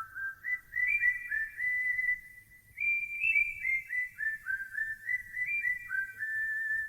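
A whistled melody opening a song: one clear tune of short notes, each sliding up into its pitch, with no singing.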